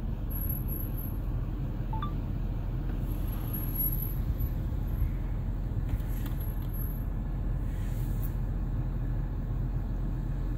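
Pickup truck's engine idling, a steady low rumble heard from inside the cab with the window down.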